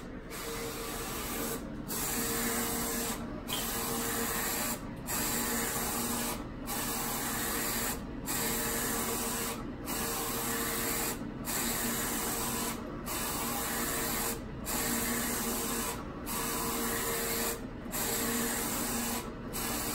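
Roland FJ-50 wide-format inkjet printer printing: the print-head carriage runs back and forth across the media in even passes about every second and a half. Each pass is a steady motor whine, broken by a brief pause as the carriage reverses.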